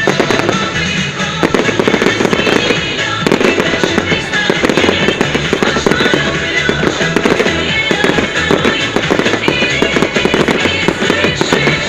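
Fireworks display: a dense, continuous run of bangs and crackling, with music playing loudly at the same time.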